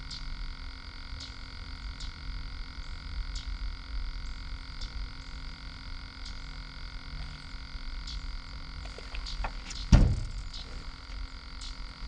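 A frog chorus calling steadily, with short high calls scattered through it. A single loud thump about ten seconds in.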